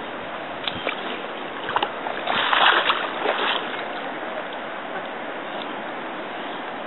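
River water running steadily, with a few light splashes and a louder burst of splashing from about two to three and a half seconds in.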